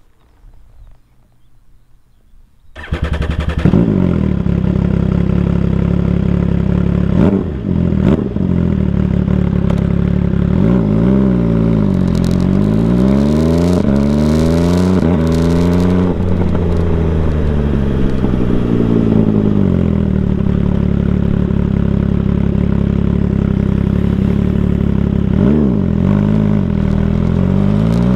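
MV Agusta Brutale 800 Dragster RR's three-cylinder engine running through an aftermarket QD exhaust under way. After a quiet start, the exhaust note comes in suddenly about three seconds in. The engine then pulls through the gears at an easy pace, its pitch rising and dropping back at each shift.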